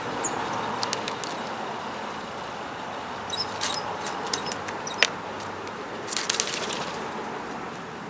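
Blue jay pecking at peanuts and seed on a wooden feeder platform: scattered sharp taps and clicks, the loudest about five seconds in, and a quick flurry of them about six seconds in. Steady outdoor hiss underneath.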